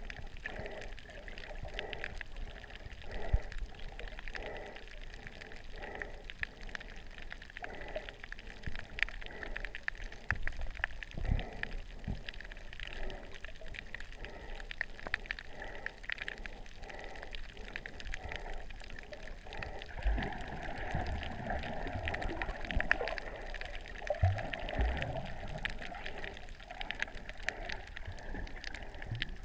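Underwater water noise picked up by a submerged camera: a muffled wash of moving water with a soft regular pulsing, about three pulses every two seconds, scattered faint clicks and a few dull knocks.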